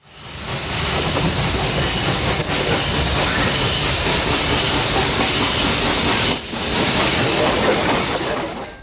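Norfolk & Western J-class 4-8-4 steam locomotive No. 611 working past at close range: a dense rush of exhaust and steam hiss with wheels on the rails. It fades in over the first second and drops away near the end.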